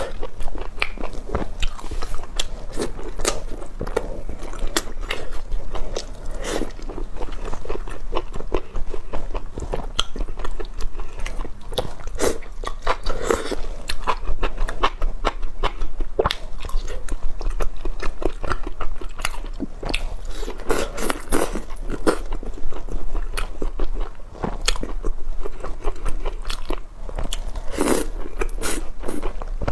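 A person biting and chewing soup-soaked fried tofu skin, with many irregular sharp clicks of mouth and food sounds throughout.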